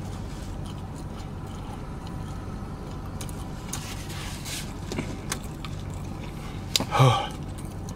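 Steady low hum inside a car's cabin, with a few faint clicks of chewing, and a brief vocal sound from the eater about seven seconds in.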